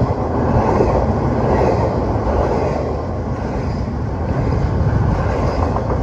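Norfolk Southern freight train rolling past close by, a steady heavy rumble of the cars on the rails.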